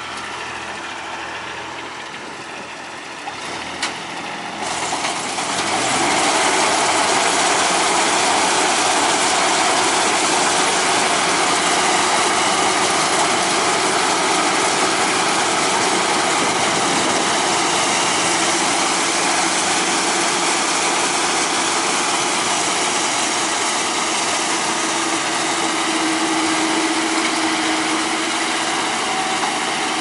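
Kubota DC-35 rice combine harvester's diesel engine running, with a single click a little before four seconds in. About five seconds in the machine grows louder and fuller and stays at that higher level.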